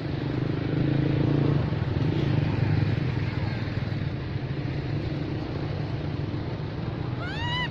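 A motor running steadily, with a baby monkey's short rising cry near the end.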